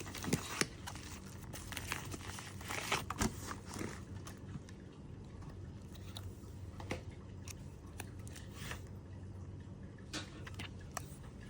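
Plastic packaging crinkling and rustling with scattered light clicks and taps as phone display screens are handled, over a faint steady hum.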